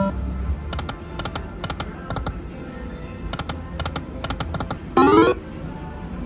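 Lightning Link slot machine spinning: quick runs of sharp electronic clicks as the reels stop, spin after spin. About five seconds in, a loud, short rising electronic sweep as the denomination-choice screen comes up.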